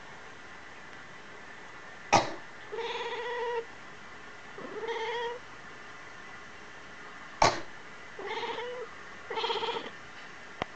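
A person coughs once, sharply, and a cat answers with two short meows; about five seconds later a second cough draws two more meows. The coughs are the loudest sounds.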